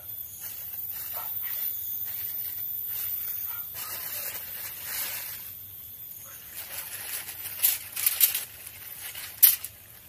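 A thin plastic bag is handled, rustling softly at first. From about seven seconds in it crinkles with several sharp crackles, the loudest near the end.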